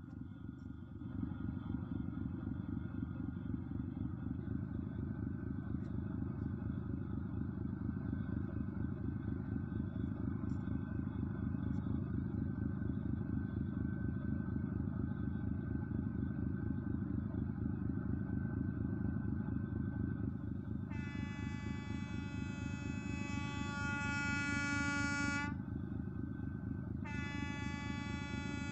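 An engine running steadily with a low rumble. About three quarters of the way in, a loud horn blows for about four seconds, then sounds again after a short pause.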